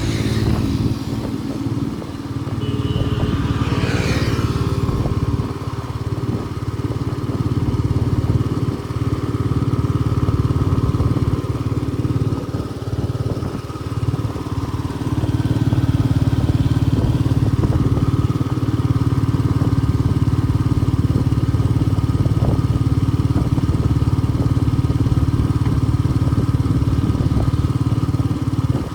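Vehicle engine running steadily on the move along a road, with road and wind noise.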